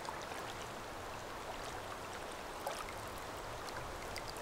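River water running steadily, with small splashes and trickles now and then.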